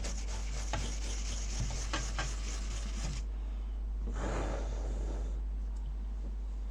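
Scratchy rubbing and handling noise, with a few faint clicks, over a steady low hum. It is steady for about three seconds, then drops away, with one more brief scratchy stretch a little past the middle.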